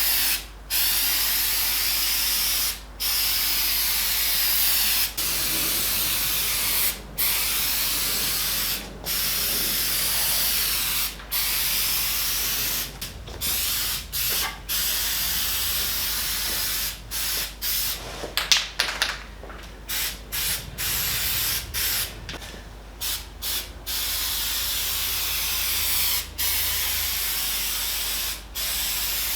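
Aerosol can of Dupli-Color Bed Armor bed-liner spray hissing in bursts of about two seconds with short pauses between, the bursts getting shorter and choppier around the middle.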